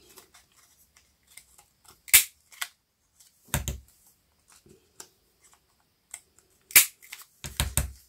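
Handheld heart-shaped paper punch snapping through black-painted paper: two sharp clacks, about two seconds in and again near seven seconds, with duller knocks in between as the punch is pressed and handled.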